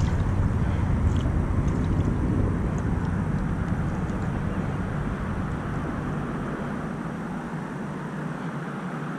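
Aircraft passing overhead: a steady low rumble that slowly fades away.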